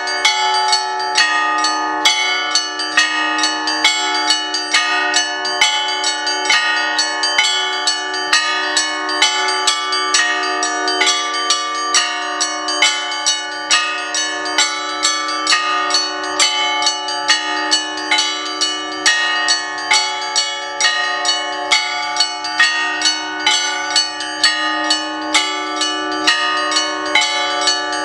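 Russian Orthodox church bells ringing: a quick, even rhythm of strikes on the smaller bells, about two to three a second, over the lower bells humming on without a break.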